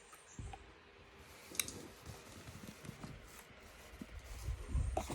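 Close handling noises: rustling and low bumps, with a sharp click about one and a half seconds in.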